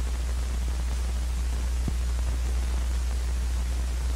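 Steady hiss and low hum of an old film soundtrack, with one faint click about two seconds in.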